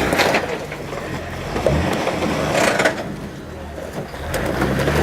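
Jeep Wrangler TJ engine revving in surges as it climbs over rock, easing off about three seconds in and building again near the end, with a few sharp knocks.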